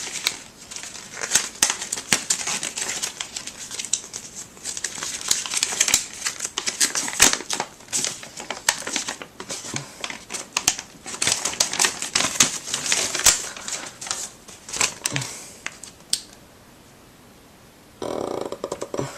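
Rustling and crinkling with many sharp clicks, as paper or card is handled and searched through; it stops about sixteen seconds in, and a short burst of handling sound follows near the end.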